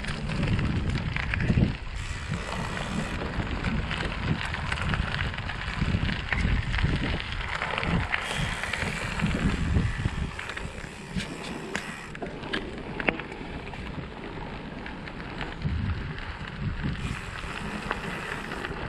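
Wind buffeting the microphone over the rolling noise of a gravel bike's tyres on the move, with a few sharp clicks and rattles about halfway through.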